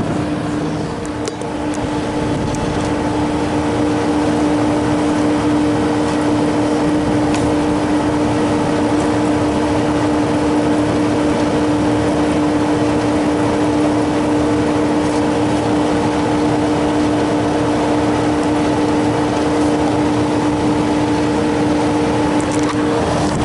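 Walk-in freezer condensing unit running: compressor and condenser fan motor with a steady hum. The condenser has just been cleaned, so the fan is turning faster and head pressure is falling.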